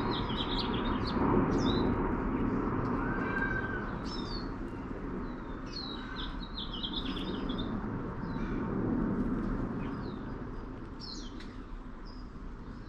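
A KC-135 jet's engine rumble fading steadily as it passes over and moves away, with small birds chirping repeatedly over it.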